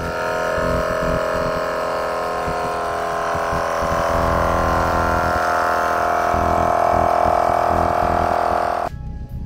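12V dual-piston portable air compressor running steadily while airing up a tire, a loud buzzing motor-and-piston hum that cuts off suddenly near the end.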